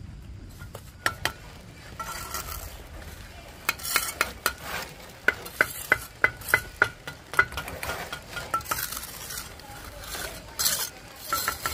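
A metal tool scraping and stirring, with a run of sharp ringing clinks several times a second in the middle and a few more near the end.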